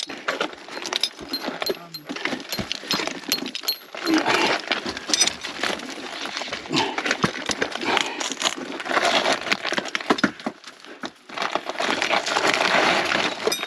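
Climbing hardware being handled: metal carabiners and clips clinking, with rope and gear rustling and scraping in quick irregular bursts.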